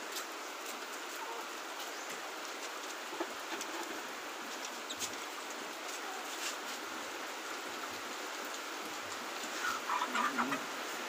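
A chicken clucks a few times near the end, over a steady hiss of background noise.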